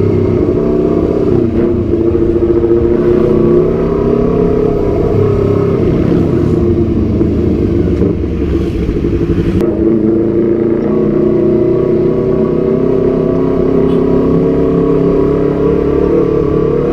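Honda CBR250RR's parallel-twin engine running through a Proliner TR-1 Short full-system exhaust, loud and at fairly steady revs with small rises and falls in pitch.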